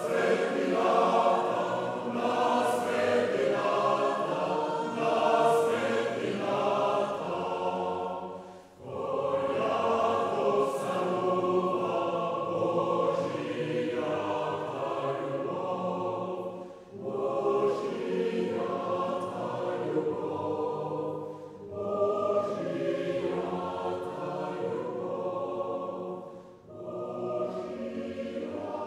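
A choir singing slow, held chords in long phrases, with short breaks between the phrases.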